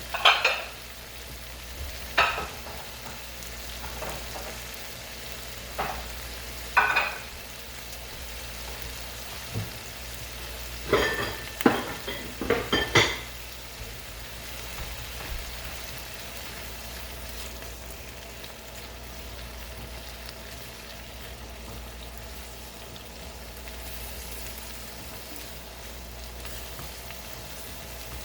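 Shrimp frying in garlic butter in a pan, sizzling steadily. A utensil stirring them knocks and scrapes against the pan now and then, several times in a row about halfway through.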